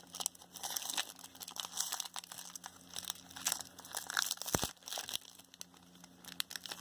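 Trading card pack's plastic wrapper crinkling and tearing as it is opened by hand, in irregular crackles, with one sharp knock about two-thirds of the way through.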